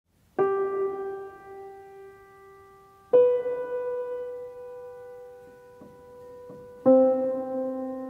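Slow, sparse piano music: three notes or chords struck about three seconds apart, each left to ring and fade.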